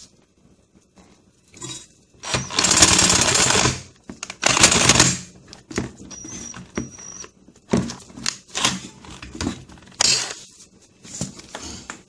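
Chicago Electric 18V cordless impact wrench hammering on a factory-torqued wheel hub assembly bolt in two bursts, the first about a second and a half long and the second about a second. Scattered clunks and knocks of the tool being handled follow.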